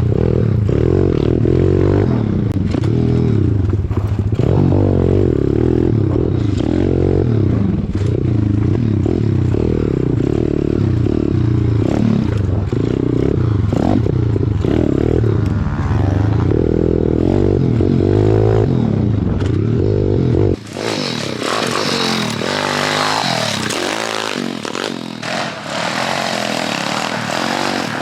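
Pit bike engines running and revving up and down on a dirt track, with heavy rumble and clatter. About twenty seconds in, the sound cuts sharply to a thinner, higher engine note.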